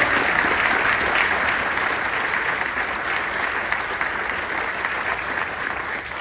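Audience applauding: a dense patter of many hands clapping, strongest at the start and slowly easing off.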